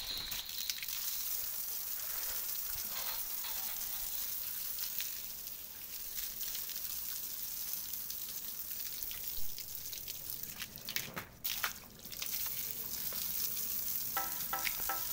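Jet of water spraying onto a wet tiled floor with a steady hiss, washing off sandstorm dust, with brief drops around two-thirds of the way through. Music comes in near the end.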